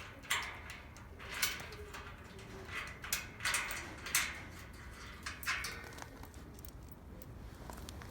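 Scattered clinks, knocks and scrapes from a wrench and metal brackets being unbolted and handled, about half a dozen short sounds spread over several seconds.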